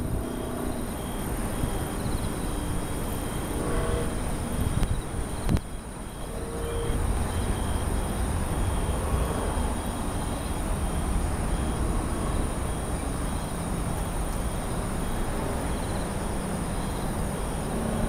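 Outdoor night ambience: a steady low rumble with insects chirping in a regular pulse about twice a second and a thin, steady high-pitched tone above it. A single sharp click about five and a half seconds in.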